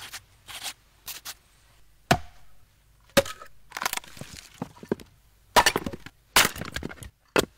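Axe chopping into a log, with the wood cracking and splitting apart: about five sharp hits a second or so apart, with smaller cracks and crackles between them.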